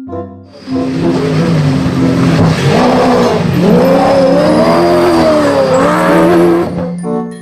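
Race-car engine sound effect: the engine revs with its pitch swinging up and down over a loud hiss of tyre and engine noise, starting just under a second in and lasting about six seconds.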